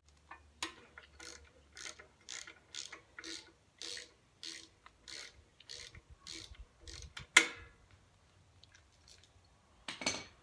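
Ratchet wrench clicking in a steady rhythm, about two clicks a second, as its socket backs the spark plug out of an 8 hp Briggs & Stratton engine. A sharper click comes about seven seconds in, and then the clicking stops.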